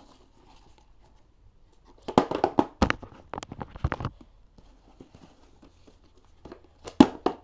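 Plastic markers being flipped and handled, giving a quick run of light clicks and knocks about two seconds in and a few more near the end.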